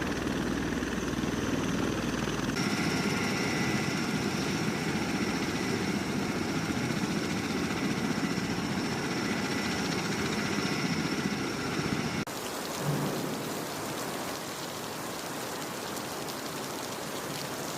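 V-22 Osprey tiltrotor's turbines and rotors running: a steady rushing noise with a high whine. The sound changes abruptly twice, and after the second change it is a flatter hiss without the whine.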